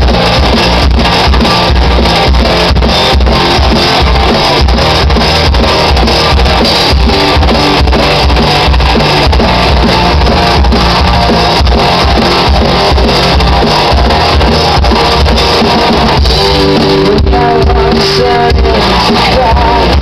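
Live rock band playing loudly, with drum kit, bass and electric guitar, recorded from the audience, so the sound is dense and steady in loudness with regular drum strokes.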